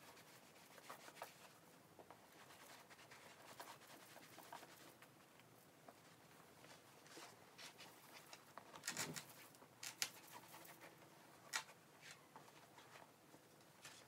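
Faint rubbing of a cloth over a Florentine leather tote as conditioner is worked in, and the leather being handled and shifted, with a few sharp clicks and a louder rustle about two-thirds of the way through.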